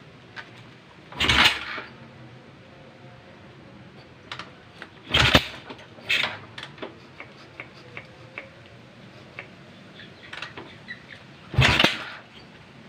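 Honda Tiger single-cylinder four-stroke motorcycle engine being kicked over three times, a few seconds apart, with light clicks between the kicks. Each kick gives a short burst of noise and the engine does not catch.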